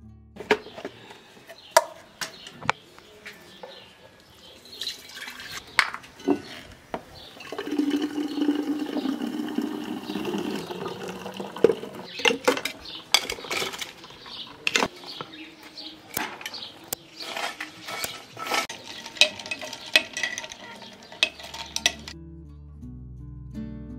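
Glassware clinking and knocking as a drink is made in a glass pitcher. Liquid pours in from about 7 to 11 seconds, and later a glass stirrer clinks against the pitcher as the drink is stirred.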